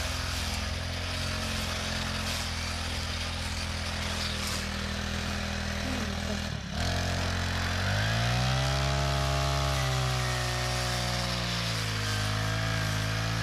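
Small four-stroke engine of a Honda GX35-clone brush cutter running at working speed, as the machine is tried out cutting grass. About halfway there is a brief dropout, after which the engine speed rises and then wavers up and down with throttle and load.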